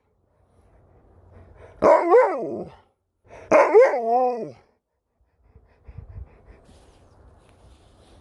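Alaskan Malamute 'talking': two drawn-out, warbling woo-woo vocalisations about a second each, the pitch wavering and sliding down at the end of each, given as its answer to a question.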